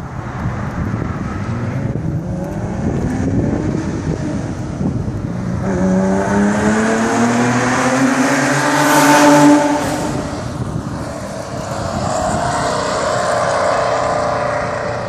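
Porsche 911 SC's air-cooled flat-six accelerating hard toward and past under a concrete overpass. The engine note climbs in pitch for several seconds and is loudest about nine seconds in as the car passes, then drops away, rising again briefly as it pulls off.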